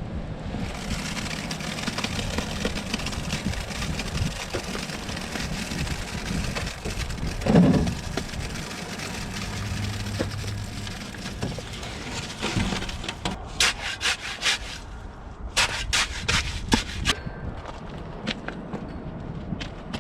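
Cut concrete and rubble being dug out of a saw-cut footing hole: a long rough scraping noise with one heavier thump partway through, then a run of sharp knocks and clicks, over a low steady hum.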